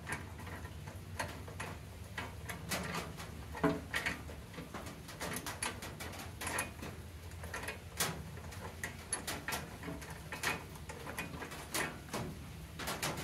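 Irregular light metallic clicks and ticks of a wrench and hands working the loose nuts on a mini excavator's hydraulic control levers, over a faint low hum.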